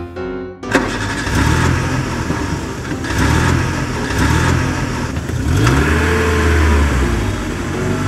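Truck engine sound starting abruptly about a second in, then running loud with its pitch rising and falling as it revs.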